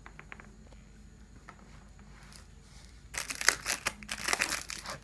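Plastic packaging crinkling as it is handled and pulled open, starting suddenly about three seconds in after a few faint clicks.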